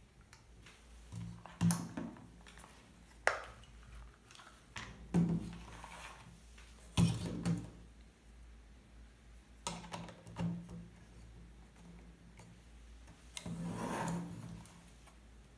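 Handling noise from a Voigtländer Perkeo II folding camera: scattered clicks, taps and knocks of its metal parts as a separate rangefinder is fitted into the accessory shoe, with a longer rubbing sound near the end.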